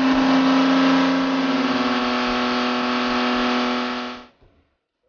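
A sports car engine running loud at high, steady revs, holding one pitch without rising or falling, then cutting off abruptly a little past four seconds in.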